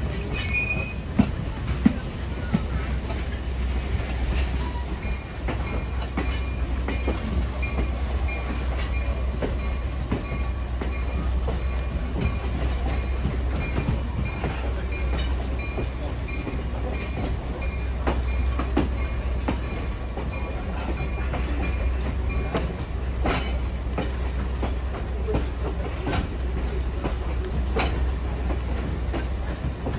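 Passenger train running along the track: a steady low rumble with irregular wheel clicks over rail joints, and a faint thin high whine through the middle stretch.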